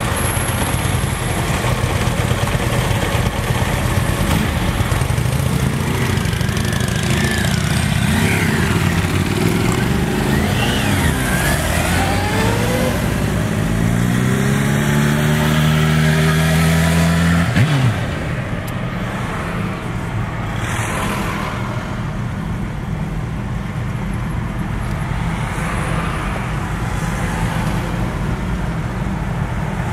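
Motorcycle and car engines in traffic, running and revving. Just before halfway one engine accelerates, climbing steadily in pitch for about four seconds, then drops away abruptly, leaving a steadier engine and road noise.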